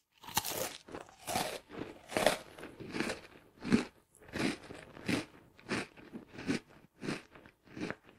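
Close-up crunching and chewing of crisp food, a steady run of short crunches about one every 0.7 s.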